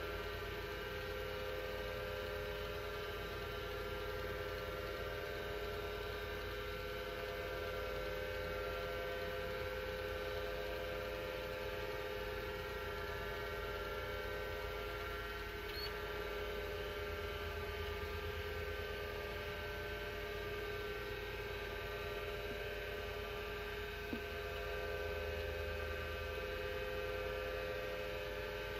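Apple Widget 10 MB hard disk drive running: a steady hum made of several steady tones over a low rumble, with one faint click late on.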